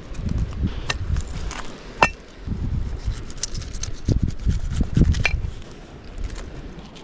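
A large knife chopping through a pineapple set on a rock, with two sharp metallic clinks about three seconds apart where the blade strikes the stone, among smaller knocks of handling. A low rumble of wind on the microphone runs underneath.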